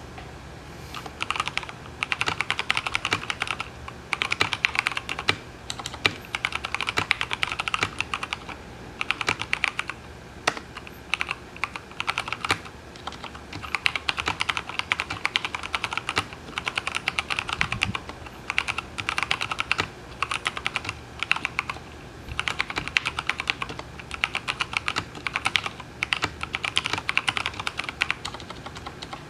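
Typing on a custom mechanical keyboard with a stainless-steel plate and vintage Cherry MX Brown switches lubed with Krytox 103: quick runs of keystrokes in bursts of a few seconds, separated by short pauses.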